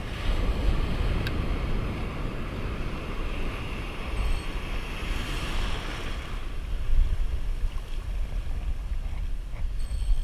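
Wind buffeting the microphone over surf washing in around the feet. The hiss of the surf swells about halfway through.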